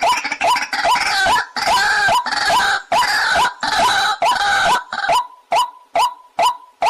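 White-breasted waterhen calling: a rapid series of loud, hooked notes, harsh and raspy through the middle, then clean single notes about twice a second from about five seconds in.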